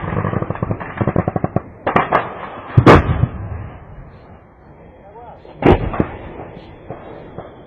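Gunfire: a rapid burst of shots for about a second and a half, then several heavy blasts, the loudest about three seconds in and another strong one near six seconds.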